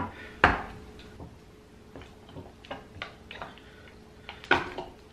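Light clicks and taps of a metal can of acetone being opened, a thin metal tool working at its cap. There is a sharp click about half a second in and another near the end.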